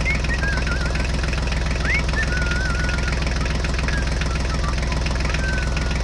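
Tractor engine chugging steadily with a fast knocking rhythm, with short high whistled chirps heard over it now and then.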